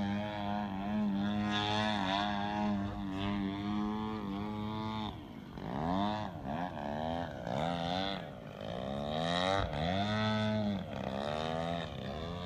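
Engine of a radio-controlled 3D aerobatic airplane in flight. It holds a steady note for about five seconds, then its pitch sweeps up and down again and again through the manoeuvres.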